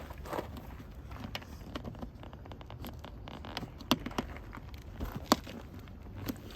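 Scattered clicks, taps and scrapes of a car door's interior trim panel being handled and pushed into place, with two sharper knocks around four and five seconds in.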